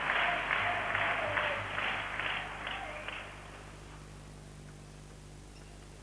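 Arena crowd clapping in unison, about three claps a second, with a wavering tone over it. The clapping fades out about three seconds in, leaving a low steady hum.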